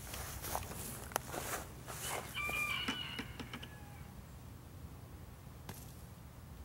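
A faint, short bird call about two and a half seconds in, among scattered clicks and knocks, over a low steady rumble.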